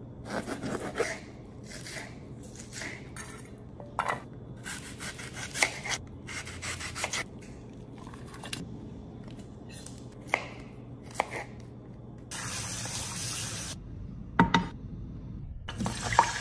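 Kitchen knife cutting a bell pepper and an onion on a wooden cutting board: irregular knocks of the blade through the vegetable onto the board. About twelve seconds in there is a hiss lasting about a second and a half, followed by a couple of sharp clatters.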